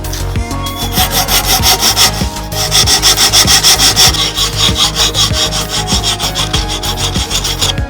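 Rapid back-and-forth rubbing strokes on wood, about four a second, like hand sanding or rasping a plywood edge.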